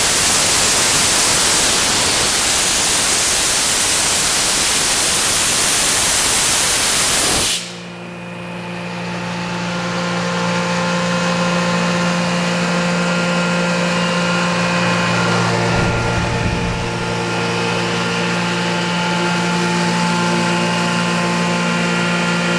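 Sullivan Palatek 20 hp rotary screw air compressor running with a loud rush of air that cuts off suddenly about seven seconds in, leaving the steady hum of the electric motor and screw element turning on. The change fits the compressor reaching its cut-out pressure of about 120 psi and unloading.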